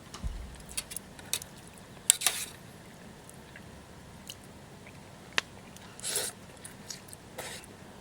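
Sparse small clicks and clinks, with a few short rustling scrapes, from camp cookware and utensils being handled.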